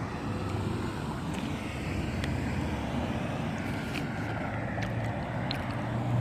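Steady low rumble and hiss of vehicle noise, with a few faint clicks.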